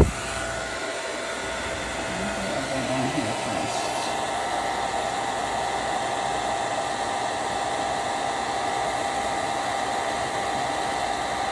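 Handheld heat tool blowing hot air steadily, its fan running with a faint steady whine. A sharp knock sounds right at the start.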